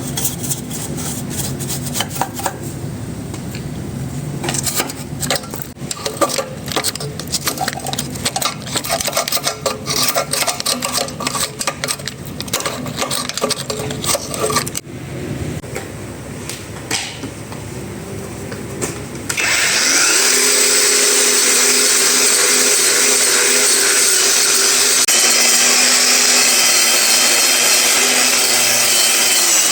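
Clicks and knocks of hand work on metal parts, then about two-thirds of the way in an electric power tool starts suddenly, spins up and runs steadily and loudly.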